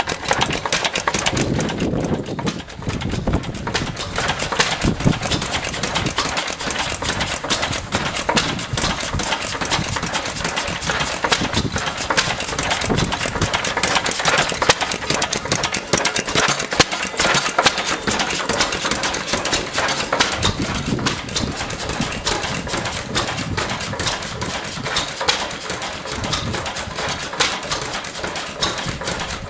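Vintage R.A. Lister stationary engine running steadily, with a rapid, even ticking clatter.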